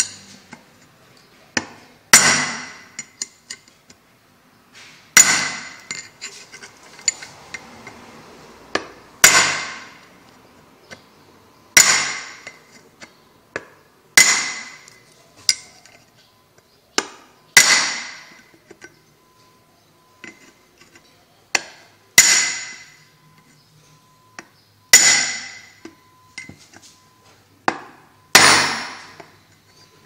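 A hammer striking a steel punch set down the bore of an automatic washing machine transmission housing: about nine hard blows a few seconds apart with lighter taps between, each ringing out and dying away. The blows are driving the bushing out of the housing.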